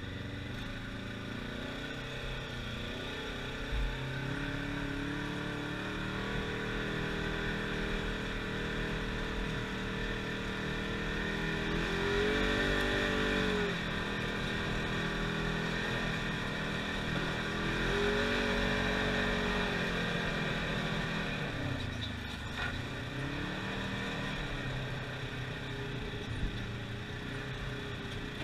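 Side-by-side UTV engine heard from inside the cab while driving a dirt track, its note rising and falling as it accelerates and backs off, with the strongest revving about twelve and eighteen seconds in.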